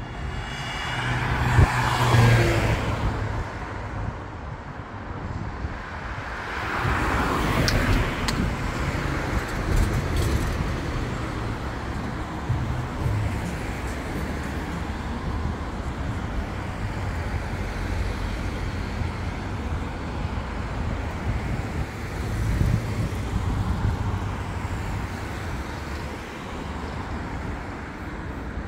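Road traffic: cars driving past on the road alongside, a steady rumble of tyres and engines. Louder single cars swell and fade about two seconds in, around seven seconds in, and again near twenty-three seconds.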